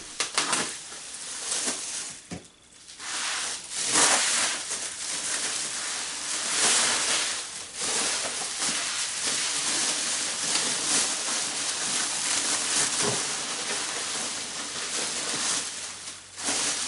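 Packaging being rustled and torn open by hand: irregular crinkling and tearing, with a short lull about two seconds in.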